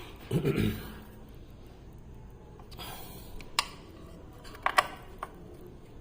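A few sharp metal clicks of hand tools on the clutch cover bolts as they are tightened by hand, with a short vocal sound about half a second in.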